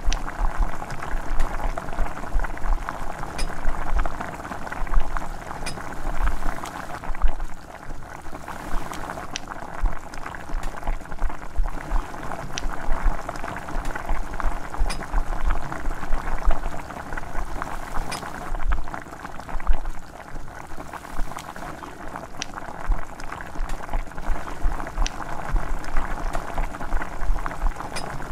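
Chicken curry boiling hard in a pot, its thick sauce bubbling and popping continuously and irregularly, with scattered sharper pops.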